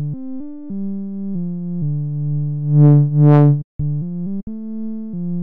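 Serum software synthesizer playing a simple one-note-at-a-time melody through a low-pass filter. About halfway through, the tone opens up bright and closes again twice, a wobble from an LFO on the filter cutoff.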